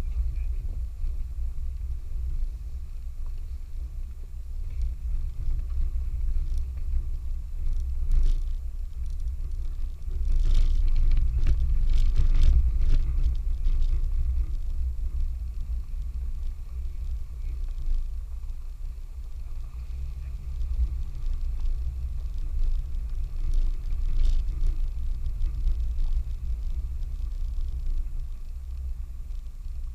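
Four-wheel-drive vehicle driving slowly over a rough off-road trail: a steady low rumble of engine and tyres, with clattering knocks and jolts that grow louder about ten to fourteen seconds in.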